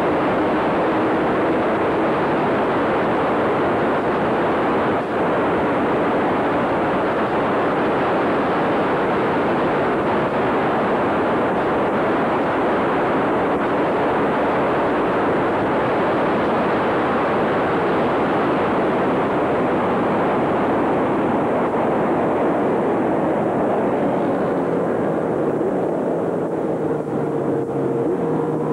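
Steady rush of road and wind noise from a car driving fast on a highway, with a faint engine note underneath. Near the end the rush eases and the engine note falls as the car slows.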